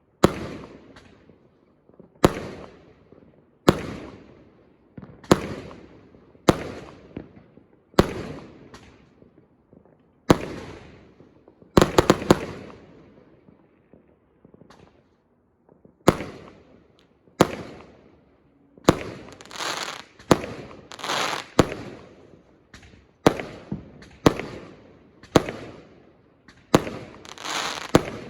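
Fireworks going off in a series of shots, a sharp bang every second or two, each trailing off in crackle. There is a short lull a little past the middle, then the shots come with brighter, fizzing crackle toward the end.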